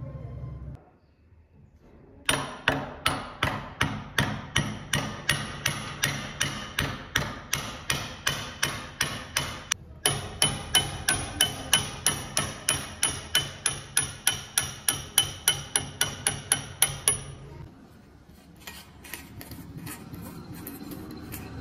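Hammer striking the old hatchet head in quick, even blows, about three a second, with a brief break about ten seconds in. The blows stop a few seconds before the end, and only faint lighter taps follow.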